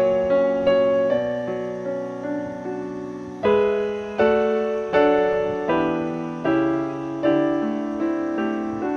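Slow solo piano music: notes and chords struck every half second to a second, each left to ring and fade.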